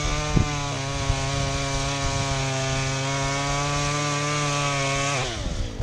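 Chainsaw held at high, steady revs for about five seconds, then the throttle is let off and the pitch drops away.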